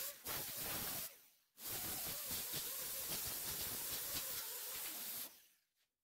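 Pneumatic angle die grinder with a small abrasive disc grinding down welds on sheet-steel body panel: a steady airy hiss that breaks off for half a second about a second in and stops about five seconds in.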